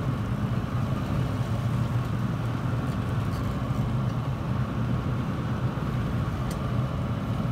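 Boat motor running steadily at trolling speed, a low, even hum.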